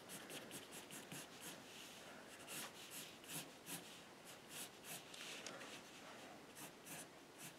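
Faint pencil strokes scratching on paper: a run of short strokes at uneven intervals as lines are sketched.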